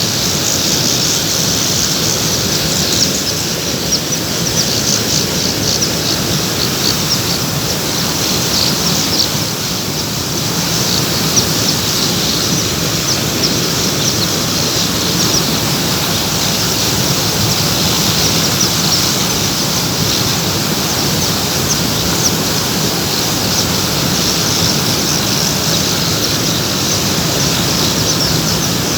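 Many small birds chirping in short, high calls over a steady, loud rushing noise.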